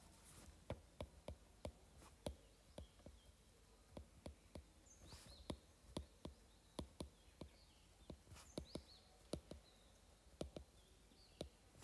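Faint, irregular ticks and taps of a stylus on a tablet screen during handwriting, with a few brief high chirps about five and eight and a half seconds in.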